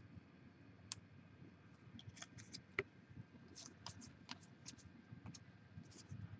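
Faint clicks and scrapes of trading cards being picked up and slid one at a time off a stack.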